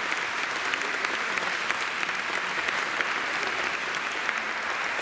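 Audience applauding: steady clapping of many hands throughout.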